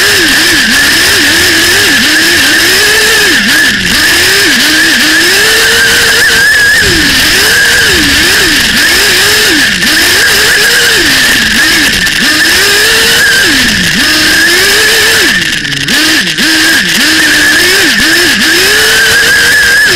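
Small nitro glow engine of an RC buggy revving up and down continuously as the throttle is worked, its pitch rising and falling every second or so. Very loud, heard from on board the car.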